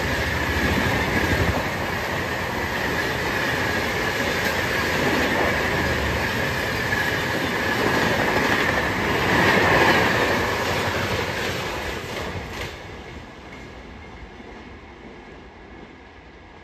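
Rajdhani Express coaches passing at about 130 km/h: loud rushing wheel-on-rail noise with clickety-clack over the rail joints and a steady high whine. It is loudest about ten seconds in, then fades away from about twelve seconds as the last coach passes and the train draws off.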